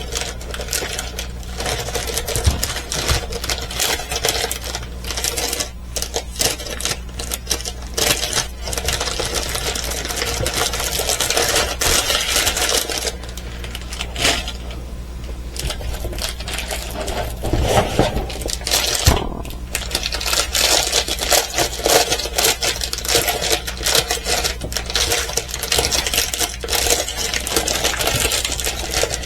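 Small plastic diamond-painting drills rattling and clicking inside their plastic bags as the bags are handled and shaken, with crinkling of the bags. A steady low hum runs underneath.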